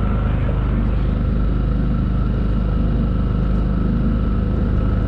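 Small skiff's outboard motor running steadily at cruising speed, an even hum with a thin steady whine above it, and water rushing past the hull.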